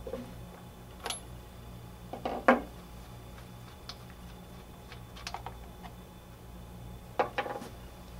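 Small metallic clicks and clinks of a spark plug wrench and the spark plug being worked loose and lifted out of a Husqvarna 223L string trimmer's cylinder head: a handful of separate sharp clinks, the loudest about two and a half seconds in, over a low steady hum.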